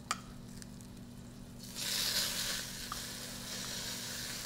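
Browned ribs going back into a hot pan of rendered fat and seared spices: sizzling starts suddenly about two seconds in and carries on.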